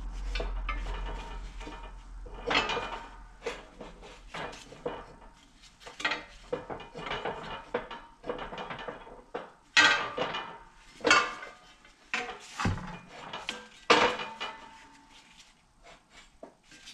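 Steel press plates and a Ford Fiesta front steering knuckle clanking and scraping against each other on a shop press bed as they are shifted into line before the old wheel bearing is pressed out. The knocks are irregular, and the loudest come in a cluster about ten to fourteen seconds in.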